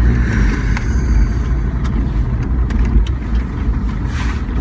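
Land Rover engine and road noise heard from inside the cab while driving: a steady low drone, with a few light clicks.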